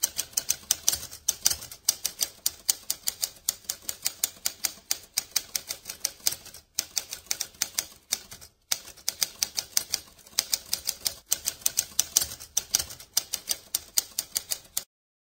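Typewriter keys clacking in quick succession, about five strikes a second, with two brief pauses, stopping shortly before the end.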